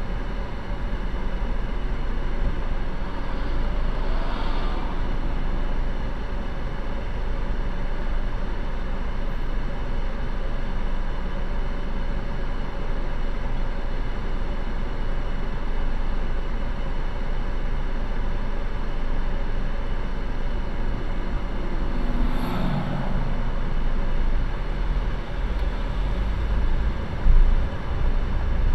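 Steady low rumble of a car's engine and running noise in slow traffic, heard from a dashcam inside the car. Twice, about four seconds in and again a little past twenty seconds, a brief rising sound rides over it.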